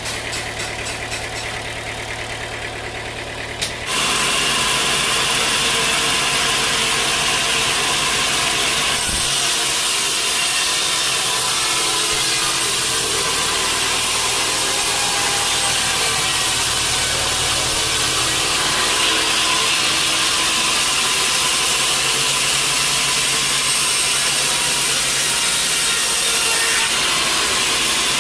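Sawmill machinery running steadily. About four seconds in, the saw bites into a log, and the loud, steady noise of the cut carries on from there.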